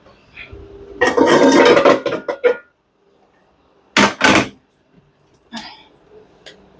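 Cookware clattering: a loud rattling scrape for over a second, then two sharp knocks close together and a couple of fainter clinks.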